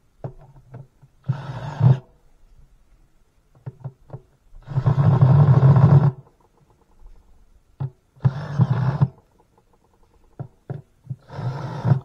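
Cordless drill-driver running in four short bursts, driving in the screws that join the cover to a plastic washing machine tub, with small clicks of handling in between. The second burst, near the middle, is the longest and loudest.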